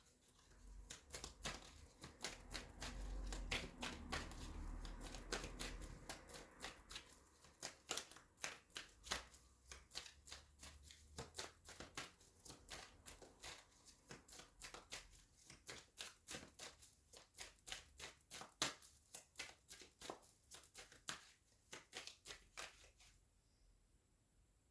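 Tarot cards being shuffled by hand, a long run of quick, irregular card snaps and riffles. A low rumble from handling sits under the first six seconds or so.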